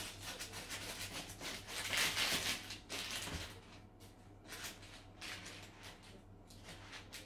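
Knife sawing through the crisp, flaky crust of a baked puff-pastry strudel on a baking tray: a run of crackling crunches, loudest about two seconds in.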